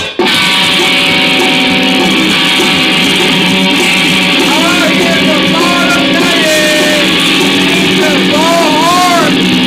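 Music with guitar, mostly instrumental; bending lead guitar notes come in about halfway through.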